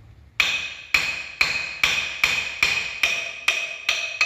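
Hammer striking metal on a Mahindra Yuvo 585 tractor's rear axle housing, with about ten steady blows roughly 0.4 s apart starting about half a second in. Each blow rings.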